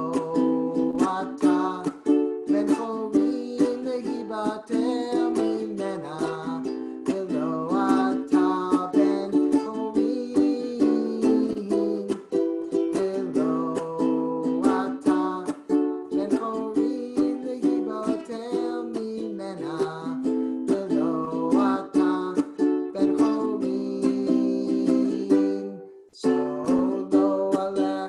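Ukulele strummed in a steady rhythm through a run of chords, with a short break near the end before the strumming picks up again.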